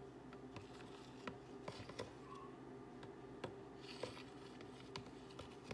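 Faint, irregular small clicks and taps from fingers working in a bowl of raw eggs, picking out the chalazae, over a low steady hum.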